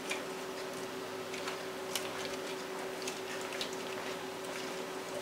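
Potato cubes coated in ranch dressing being tossed with a spoon in a glass mixing bowl: soft squishing with scattered light clicks of the spoon against the glass, the sharpest about two seconds in. A steady low hum runs underneath.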